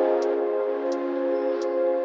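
Background music of held, sustained chords with a light tick about every 0.7 seconds, three ticks in all.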